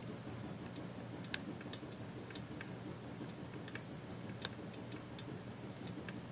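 Light, irregular metallic clicks and ticks of lock-picking tensioners and picks being pulled from and handled around a challenge padlock, the clearest about a second and a half in and again past four seconds, over a faint low hum.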